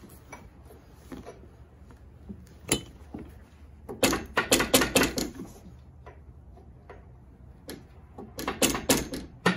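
Metal hand tools clicking and clattering against metal deep in an engine bay as a new motor mount is worked into line. There is a single click, then two runs of rapid rattling clicks, one about four seconds in and one near the end.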